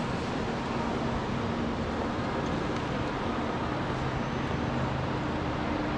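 Steady background noise of a large railway station concourse, an even wash with a faint low hum running under it.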